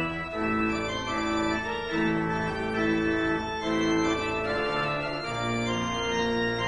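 Organ playing sustained chords that change about once a second over held bass notes.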